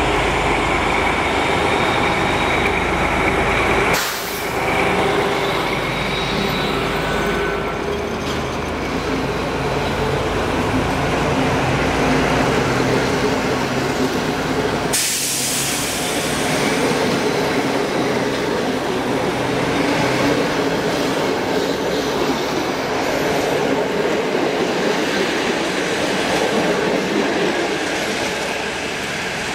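SU45 diesel locomotive's Fiat-licensed engine running under power as it pulls a passenger train out. From about halfway the engine rumble gives way to the coaches rolling past, their wheels clattering on the rail joints with some squeal.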